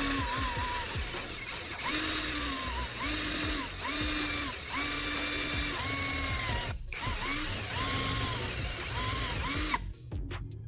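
Handheld power tool run in short repeated bursts, its motor whine rising as each burst starts and dropping as it stops, then stopping near the end.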